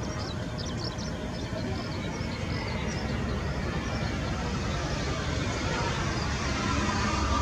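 JASDF CH-47J Chinook tandem-rotor helicopter, twin turboshaft engines, lifting off into a hover: a dense rotor chop with engine noise that grows louder, with a whine rising near the end as the wheels leave the ground.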